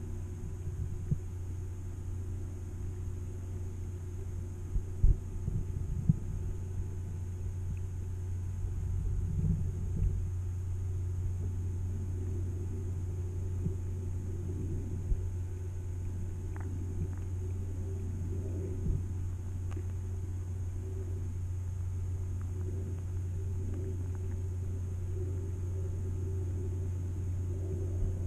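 Muffled underwater sound picked up by a GoPro in its waterproof housing held under lake water: a steady low rumble and hum, with scattered sharp knocks, the strongest about five seconds in.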